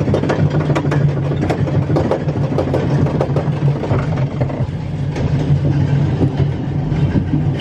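Amusement-park ride in motion: a steady mechanical hum with continual rattling and clacking from the ride car.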